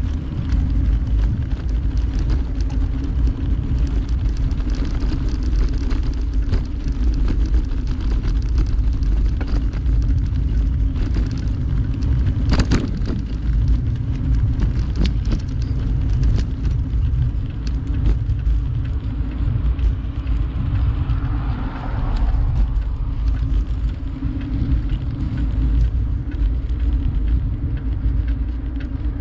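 Steady low rumble of wind on the microphone and road noise from a bicycle being ridden, with one sharp click about halfway through.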